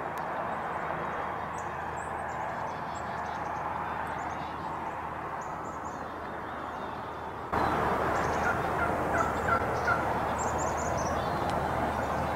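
Outdoor birdsong: small high chirps scattered throughout over a steady background hiss, which gets suddenly louder a little past halfway. Soon after that comes a quick run of about six louder short calls.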